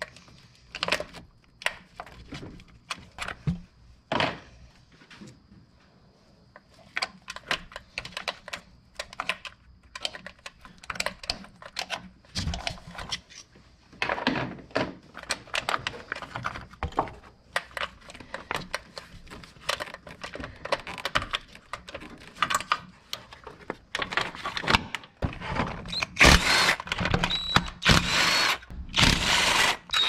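Hand-tool work on the shift cables and cable bracket at a car's transmission: scattered metal clicks and knocks as the cable ends are pried off and parts handled. About three-quarters of the way through comes a denser, louder stretch of rattling tool noise as the bracket bolts are worked.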